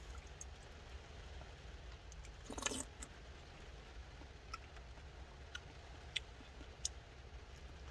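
Quiet cabin of a parked car with a low steady rumble, scattered faint clicks and one brief louder noise about two and a half seconds in.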